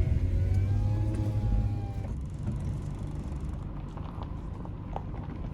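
A dog whines once, a wavering pitched whine lasting about two seconds, over the steady low rumble of a Subaru driving slowly, heard inside the car.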